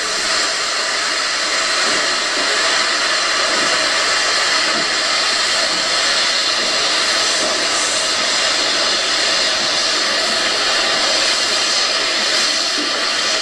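Steady loud steam hiss from a sound-equipped HO model steam locomotive as it pulls slowly away.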